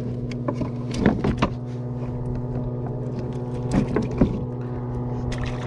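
A small motor driving the kayak gives a steady hum, with a few sharp knocks and rattles from a fish and gear being handled against the plastic hull about a second in and again near four seconds.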